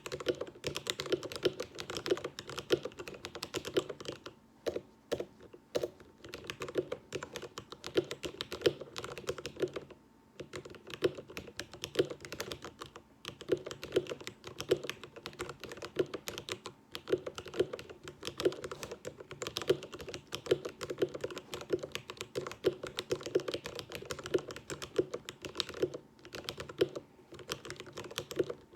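Typing on an upgraded budget gaming keyboard: a fast, continuous run of key clicks, with a few short pauses.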